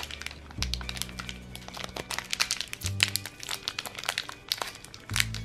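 Thin plastic wrapper crinkling and crackling as fingers peel it off a small plastic toy figure, over background music with low held bass notes that change every couple of seconds.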